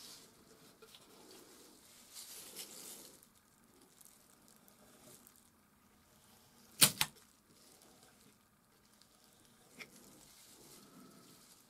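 Palette knife working oil paint in soft scraping strokes, with a sharp double click about seven seconds in and a lighter click near the end.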